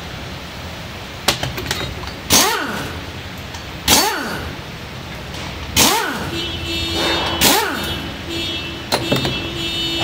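Pneumatic wrench run in four short bursts, one every one and a half to two seconds, each a hissing whir that drops and then climbs in pitch as it spins bolts out of the engine's water pump pulley.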